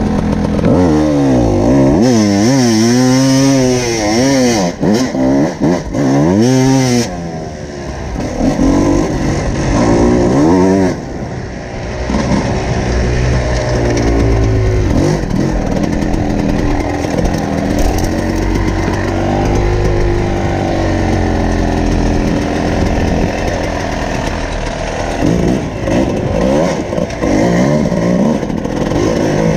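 Two-stroke enduro motorcycle engine being ridden hard off-road, its pitch swooping up and down with the throttle about once a second for the first several seconds, then running steadier with smaller rises and dips.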